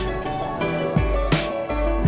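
Soundtrack music with a steady beat: deep kick drums and sharp snare-like hits over sustained chords.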